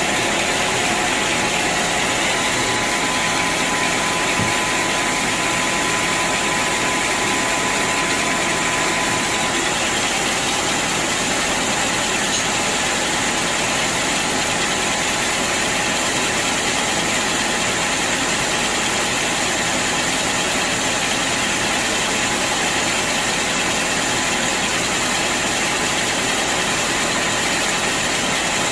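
Band sawmill running with a steady mechanical noise that holds at an even level throughout.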